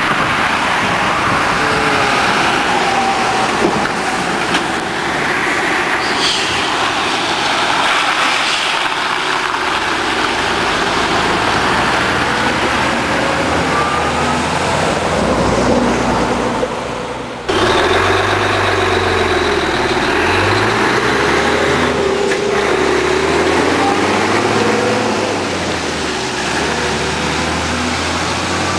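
Road traffic passing, then the diesel engine of a Mercedes-Benz Actros 2540 truck, a V6, running steadily as the truck with its drawbar trailer pulls away. The sound breaks off abruptly about two-thirds of the way through and resumes with the engine running.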